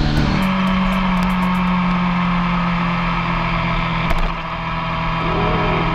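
Yamaha R1 sport bike's inline-four engine running under way, with a music track coming in near the end.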